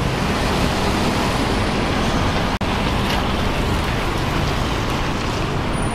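Double-decker tour bus pulling in to the stop and running at the curb, over steady street traffic noise. The sound cuts out for an instant about two and a half seconds in.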